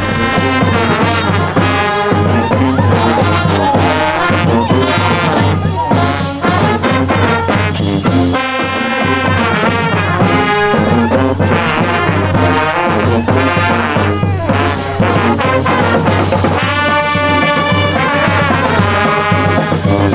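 Brass band (fanfarra) playing, the horns sounding continuously at an even, loud level.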